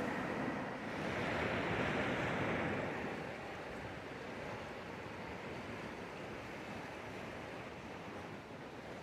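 Rushing high water of a swollen mountain stream, a steady rush of noise that swells for a couple of seconds about a second in, then settles a little quieter.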